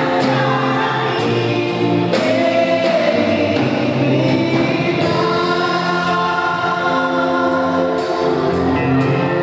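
Gospel worship band and choir singing a song with accompaniment: held sung notes over the band, with regular drum or cymbal hits.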